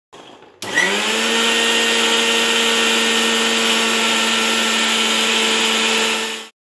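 Preethi Crown mixer grinder switching on and spinning up in a fraction of a second to a steady high-speed whine, blending egg and oil into mayonnaise in its small stainless-steel jar. It stops abruptly near the end.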